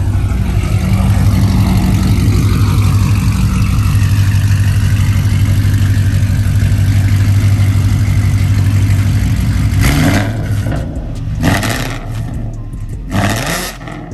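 2014 Ford Mustang GT's 5.0 V8 running through catless JBA 1-7/8-inch long-tube headers and an off-road X-pipe, idling loudly, then revved three quick times over the last few seconds, the pitch rising with each rev.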